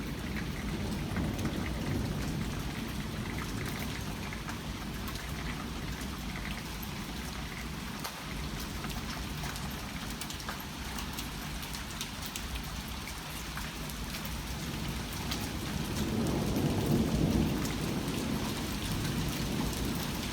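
Heavy thunderstorm rain falling steadily, with many drops tapping close by. A low rumble of thunder swells about sixteen seconds in.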